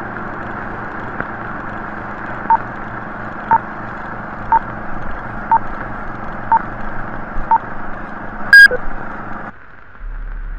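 Film-leader countdown: six short beeps one second apart over a steady hiss and hum, then a louder, higher beep about two-thirds of the way in, after which the hiss cuts out.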